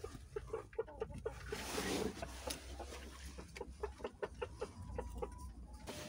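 Chickens clucking in a henhouse: a steady run of short, low clucks repeating several times a second, with a brief rustle about two seconds in.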